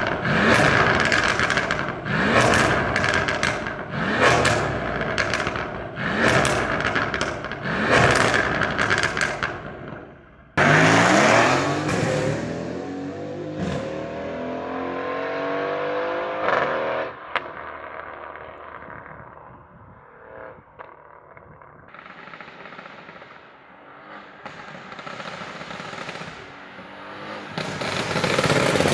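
Mercedes-AMG GLC 63's twin-turbo 4.0-litre V8 with 200-cell race-cat downpipes, revved in a quick series of short blips, about one a second. About ten seconds in it launches hard and pulls away through several upshifts, fading with distance, then grows louder again near the end as it drives back towards the listener.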